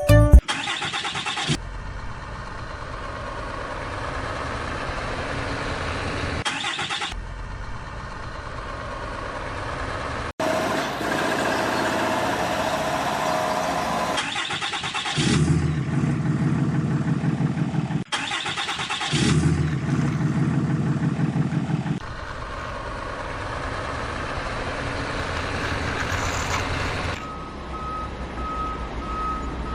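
Heavy vehicle engines running, in a string of short segments that change abruptly every few seconds, some louder and deeper as if working under load. A reversing beeper sounds near the end.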